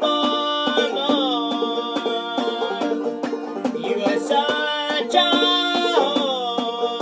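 Banjo played clawhammer style: a steady, rhythmic stream of plucked notes.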